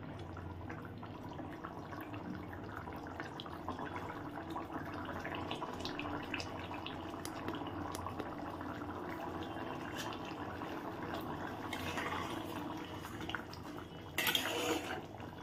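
A pot of egg curry simmering uncovered, the gravy bubbling with a steady run of small pops and plops. Near the end a spatula stirs briefly through the pot, the loudest moment.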